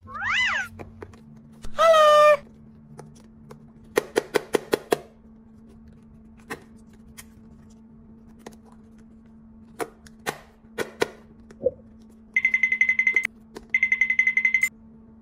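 A quick falling whistle-like tone and then a short loud pitched tone. These are followed by a quick run of about seven clicks and scattered single clicks from a pink plastic toy mold being handled. In the last few seconds there are short bursts of a rapidly pulsing electronic ringing, like a telephone ring.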